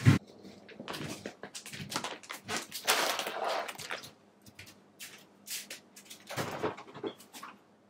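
An indoor door swinging shut with a single sharp thud right at the start, followed by a few seconds of irregular light rustling and clicks.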